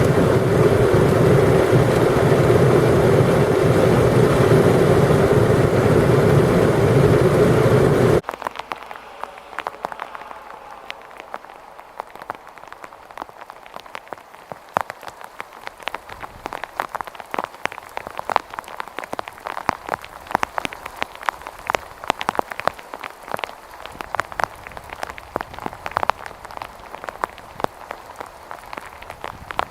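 A loud, steady rushing noise stops abruptly about eight seconds in. It gives way to rain: many raindrops striking a hard surface as quick, scattered ticks over a soft hiss.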